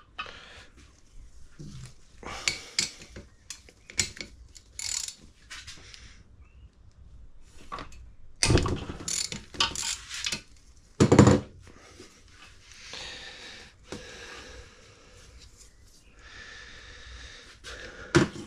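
Ratchet clicking in short runs and metal tools knocking while the M8 bolt of a piston oil-cooling jet is undone from the engine block, with one louder knock about halfway through.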